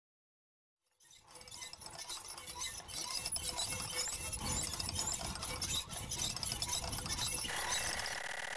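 Logo sting sound effect: a crackling, glitchy noise full of small clicks fades in about a second in and swells, then near the end turns into a steady electronic tone of several pitches at once.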